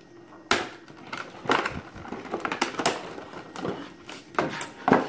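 Thin clear plastic blister packaging being pried open and handled, crinkling and crackling in irregular sharp snaps, the loudest near the end.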